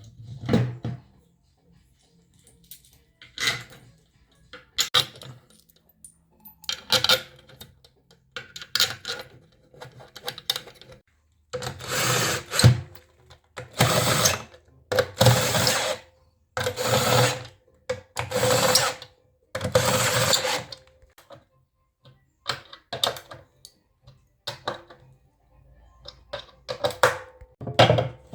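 A handheld electric power tool, drill-like, run in five bursts of about a second each, one after another, about halfway through. Scattered short knocks and taps come before and after the bursts.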